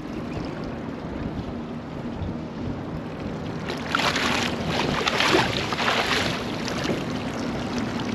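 Chinook salmon thrashing and splashing at the surface as it is scooped into a landing net, a loud spell of splashing about four seconds in that lasts a couple of seconds. A steady low rumble of wind on the microphone runs underneath.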